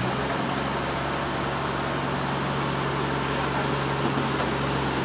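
Steady low hum of running machinery with an even rushing noise above it, unchanging until it cuts off abruptly at the end.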